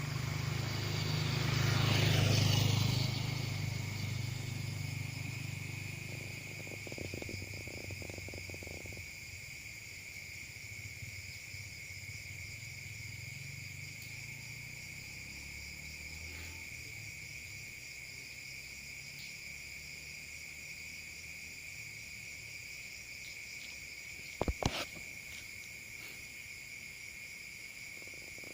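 Night insects trilling steadily on one high pitch. A louder swell of low rumble and hiss rises and fades in the first few seconds, and a few sharp clicks come near the end.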